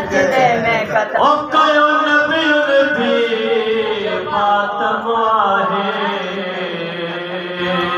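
A man singing a noha, a mournful Shia lament, into a microphone: long held, wavering lines with slow melodic turns, no instruments.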